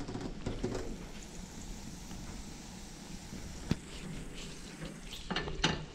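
Butter sizzling in a hot frying pan, a steady hiss, with a sharp click about two-thirds of the way through.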